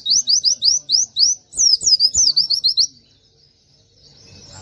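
White-eye (pleci) singing a fast string of high, sweeping chirps, mostly rising notes then falling ones, breaking off about three seconds in and starting again near the end.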